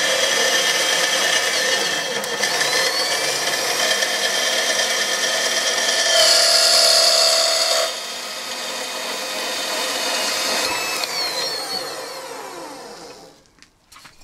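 Elmos 209 mini metal-cutting band saw running at maximum speed and sawing through a square metal tube, a steady high whine that grows louder for a couple of seconds about six seconds in. Near the end the motor stops and winds down, its pitch falling and the sound fading out.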